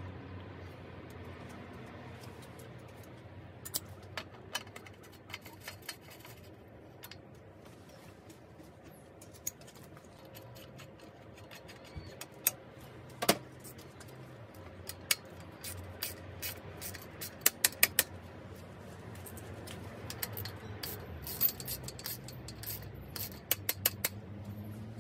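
Scattered sharp metallic clicks and clinks of hand tools and bicycle parts as a bottom bracket and Shimano Deore crankset are fitted to a frame, over a faint low hum. Near the end comes a quick run of clicks as the crank bolt is tightened with a ratcheting torque wrench.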